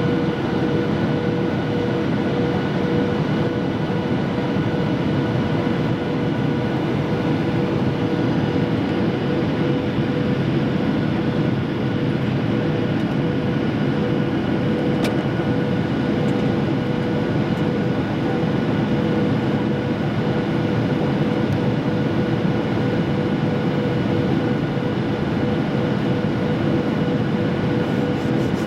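Airliner cabin noise during the descent on approach: the steady rush of the jet engines and airflow heard from a window seat, with a few steady whining tones on top. There is a single faint click about halfway through.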